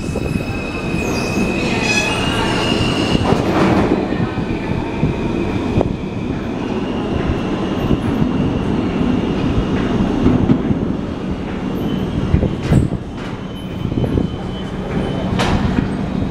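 R160 subway train pulling out of the station and running off into the tunnel. Its wheels squeal high in the first few seconds over a dense running rumble and clatter, with a few sharp knocks from the wheels on the rails later on.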